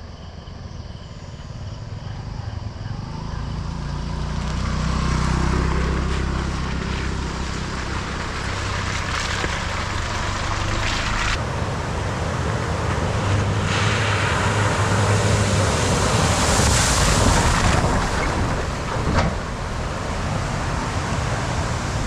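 A 4x4's engine running under load, the revs climbing about four seconds in and then holding steady, under a broad rushing noise that swells near the end. A single sharp knock comes near the end.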